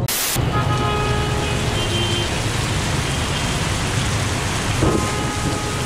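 Heavy tropical downpour pouring onto the street and pavement in a steady hiss, with traffic driving through the rain beneath it. A few faint held tones sound over it about a second in and near the end.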